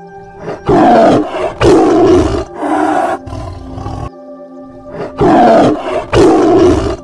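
Tiger roaring: three loud roars about a second apart, a pause of about two seconds, then two more. Soft background music with steady tones plays underneath.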